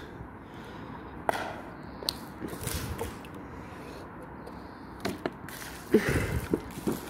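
Plastic water bottle being handled and set down on a tiled pool edge: scattered light knocks and clicks, the loudest cluster with a dull thud about six seconds in.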